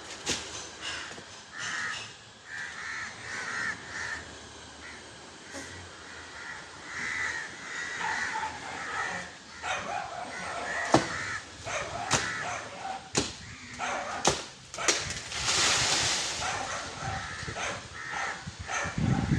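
Repeated bird calls, with several sharp knocks between about ten and fifteen seconds in and a short rushing noise around sixteen seconds.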